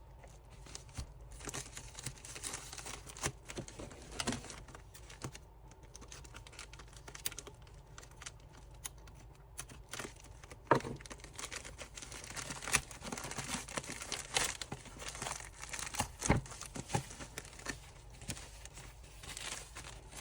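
A package being opened by hand: irregular tearing and crinkling of packaging, with scattered sharp clicks and knocks, a couple of them louder in the middle.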